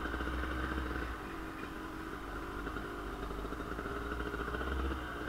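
Kawasaki KDX 220 single-cylinder two-stroke dirt bike engine running while being ridden, its pitch wavering a little with the throttle.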